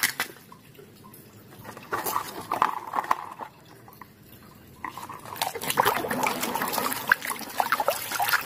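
Hand sloshing and squelching in a basin of thick muddy water, with a few wet splashes early on and a busier run of squelches and splashes from about five seconds in.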